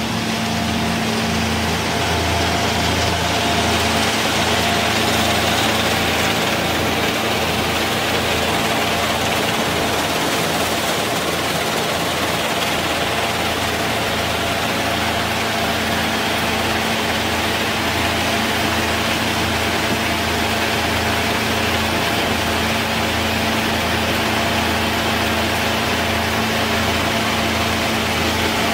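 Peanut shelling machine running steadily with peanuts in the shell being fed through it: a steady motor and fan hum under a dense, even rushing rattle.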